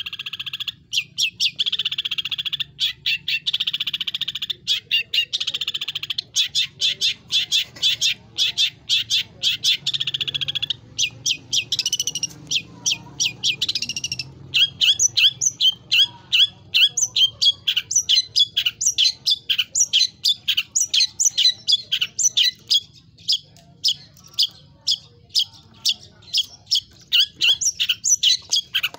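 Long-tailed shrike (cendet) singing loudly and without pause, its song packed with mimicked phrases. Fast continuous trills in the first half give way about halfway through to a long run of sharp, evenly repeated notes.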